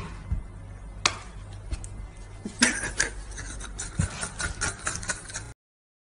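Scattered soft knocks, taps and rustles over a low steady hum, as a chimpanzee and a dog tussle on bedding. The noise cuts off to silence about five and a half seconds in.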